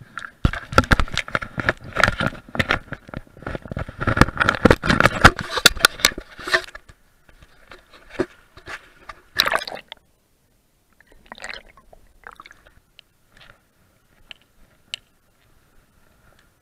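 Close handling noise on a chest-mounted camera: jacket fabric rubbing and scraping over the microphone in a dense run of crackles for about six seconds. Then come quieter, scattered rustles and knocks, with one brief louder burst about halfway through.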